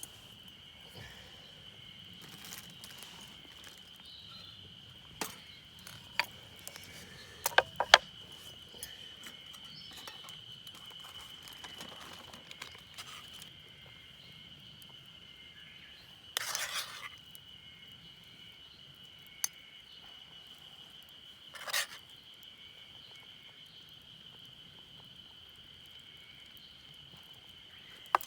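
A steady, high insect drone running throughout, with scattered sharp clicks and knocks, a cluster of louder ones about eight seconds in, and brief rustling bursts later on.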